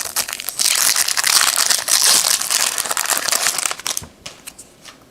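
Crinkling of a 2017 Topps Opening Day trading-card pack's foil wrapper as it is opened and handled, for about three seconds, followed by a few light clicks.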